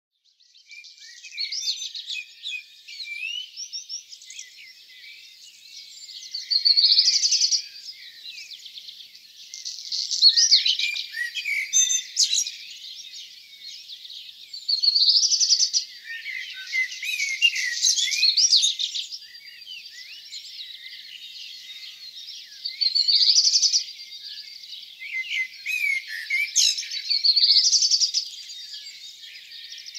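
Dawn chorus of several songbirds singing at once: a dense weave of high chirps, trills and whistled phrases, with louder songs rising out of it every few seconds.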